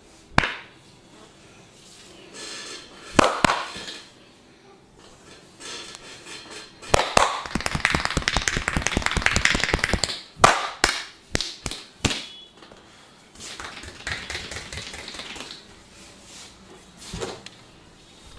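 Percussive massage strikes on the body: single sharp slaps now and then, and a rapid run of quick strikes for about three seconds in the middle. Softer rubbing sounds fill the gaps between them.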